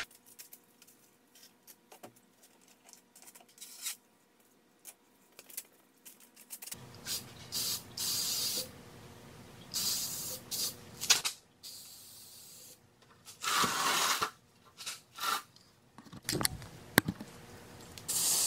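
Aerosol can of matte spray paint hissing in several short bursts, each about a second long, with quiet gaps and a few clicks between: light mists sprayed for a first coat.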